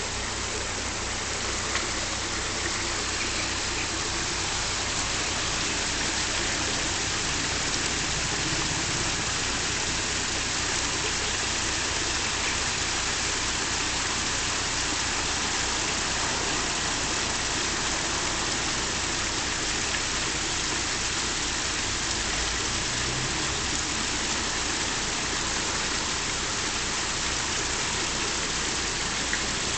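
Water rushing steadily into a canal lock chamber as it fills, with a narrowboat's diesel engine idling low underneath.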